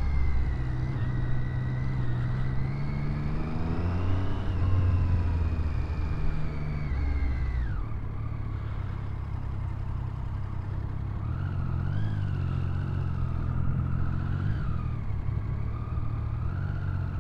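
Triumph Street Triple's three-cylinder engine pulling away at low speed: the revs rise over the first few seconds, drop sharply about eight seconds in, then rise and fall gently with small throttle openings.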